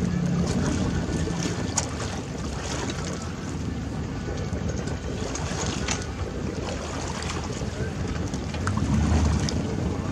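Wind rumbling on the microphone over open water, with water lapping and a few short splashes of a paddle being dipped.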